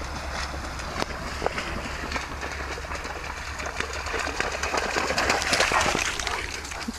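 Rhodesian ridgeback running through shallow marsh water, splashing with each stride. The splashing grows louder as the dog nears and is loudest about five to six seconds in.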